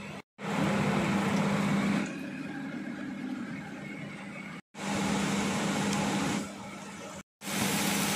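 Steady machine hum with a hiss over it, stepping louder and quieter by turns and cut off by three brief silent gaps.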